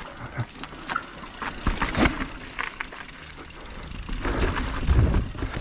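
Mountain bike rolling over a wet, rocky trail: uneven tyre rumble with chain and frame rattle, and two heavy thuds, about two seconds in and near the end.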